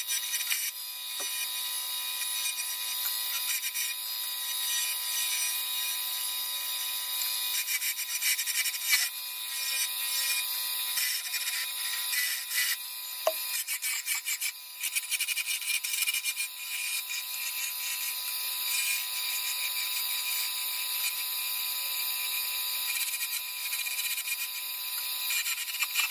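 Ash spindle spinning on a wood lathe while a hand-held turning tool cuts into it: a continuous scraping, hissing cut with a steady tone running underneath, dipping briefly now and then as the tool is eased off and reset.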